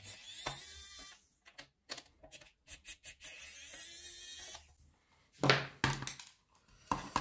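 Small electric precision screwdriver whirring in two short runs, unscrewing small screws from a plastic housing, with light clicks between the runs. About five and a half seconds in come a few louder knocks of plastic being handled.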